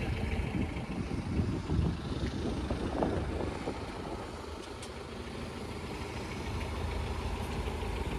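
Road traffic: car and truck engines idling and passing at low speed, a steady low rumble with one brief louder swell about three seconds in.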